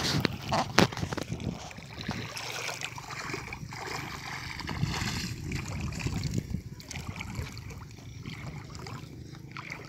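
Legs wading through shallow, muddy lake water, with sloshing and splashing around them. A sharp knock sounds about a second in.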